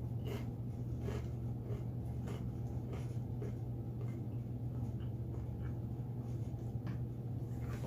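Someone eating from a takeout food bowl: scattered small scrapes and clicks of a utensil and chewing, over a steady low hum.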